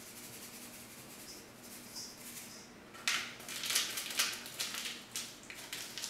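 Paper-foil packet of active dry yeast being torn open and crinkled by hand, a run of irregular crackly rustles starting about halfway through.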